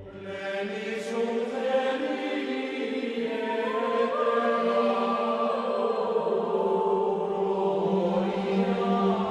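Soundtrack music: voices chanting in held notes over a steady low drone.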